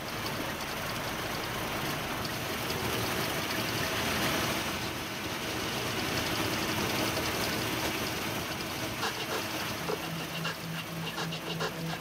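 Combine harvester running while it harvests wheat: a steady, even machine noise. Near the end, music with a regular beat comes in.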